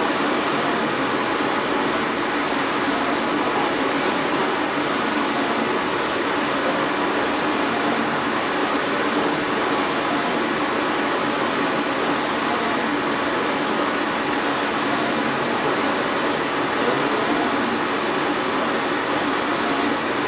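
UV flatbed printer running, its print-head carriage shuttling back and forth over a large plastic sheet: a steady mechanical whir that swells and dips regularly, about once a second.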